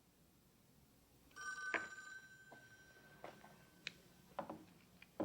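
A telephone or intercom ringing once with a steady electronic tone for about two and a half seconds, cut off with a click. A few light clicks and knocks follow.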